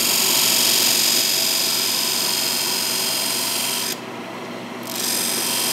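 A small parting tool cutting a groove into a spinning mahogany blank on a wood lathe: a steady, loud scraping hiss over the lathe's running hum. About four seconds in the tool comes off the wood for under a second, leaving only the lathe, then bites in again.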